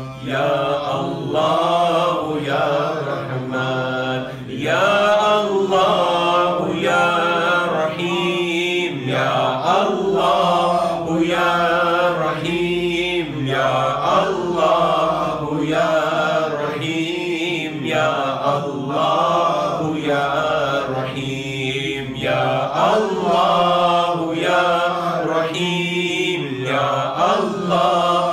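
A man chanting melodically into a microphone in religious recitation, holding long notes that bend up and down. The phrases last about four seconds each, with short breath pauses between them, over a steady low hum.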